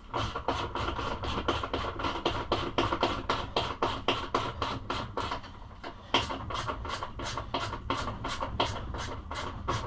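Ratchet wrench tightening a bolt on a Kawasaki KLX110 pit bike's bodywork, clicking evenly about four or five times a second through many turns. The bolt had been loosened a long way.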